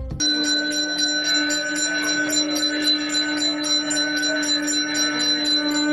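Temple bell rung continuously, its clapper striking about four times a second, the ringing steady and loud.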